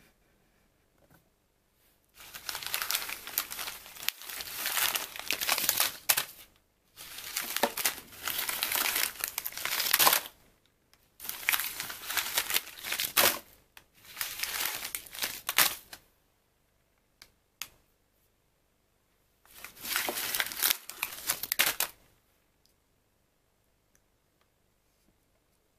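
Milford Kühl & Lecker tea-bag sachets crinkling as they are handled and gathered into a pile by hand, in five bouts of a few seconds each with short pauses between.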